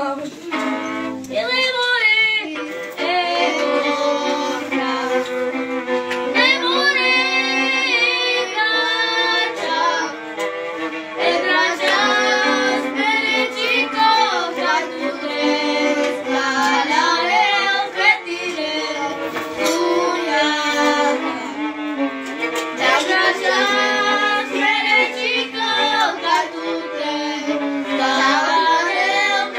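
A boy singing a Romani song while accompanying himself on the violin, the sung melody riding over held bowed notes.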